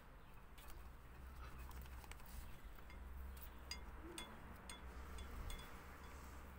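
Faint, scattered small clicks and light taps of hands working small craft pieces on a newspaper-covered table, over a low steady hum.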